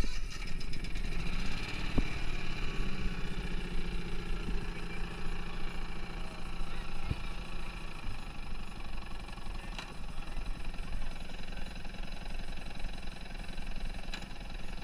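Lawn mower engine, used as a boat's motor, running steadily.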